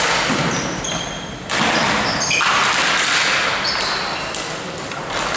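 Ball hockey game play: sticks and the ball knocking and thudding, with short high squeaks over a steady noisy background.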